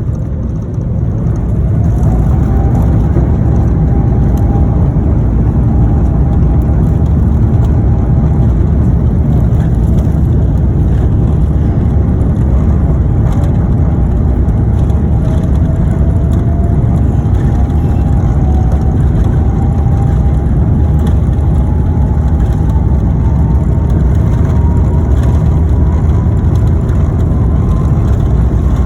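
Airbus A350-900's Rolls-Royce Trent XWB turbofans at takeoff power, a loud, steady rumble. An engine whine rises in pitch in the first couple of seconds as the engines spool up, and a second tone climbs slowly through the rest of the takeoff run.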